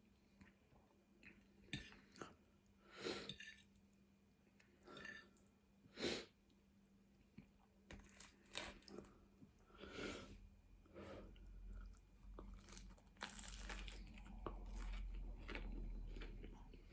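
Faint mouth sounds of eating: soft chewing with scattered small crunches and wet clicks, a few seconds apart. A faint low rumble joins in over the last few seconds.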